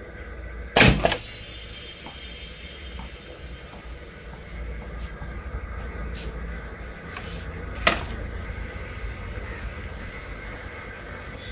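Homemade compressed-air tennis ball cannon firing: a loud blast of air about a second in, followed by a hiss of escaping air that fades over a few seconds. A second sharp bang comes near the end.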